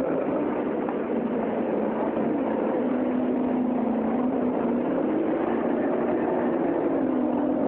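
Steady engine and traffic noise from a nearby vehicle, with a low hum that slowly drifts up and down in pitch.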